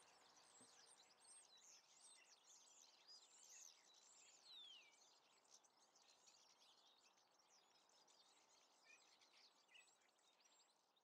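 Faint chirping and song of small birds, a quick flurry of calls that thins out and fades over the last few seconds.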